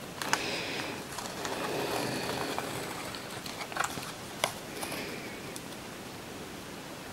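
Paper tape being peeled off the edge of a watercolour sketchbook page: a soft rasping peel for the first couple of seconds, then a few small clicks and quieter peeling as the strip comes away.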